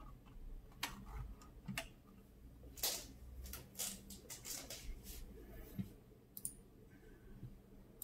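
Scattered faint clicks and taps, about a dozen at uneven intervals, bunched quickly about three to five seconds in.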